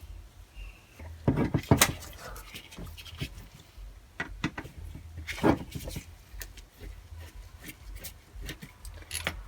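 Scattered clicks and knocks of small carburetor parts and a solvent container being handled, loudest a couple of times, over a low steady hum.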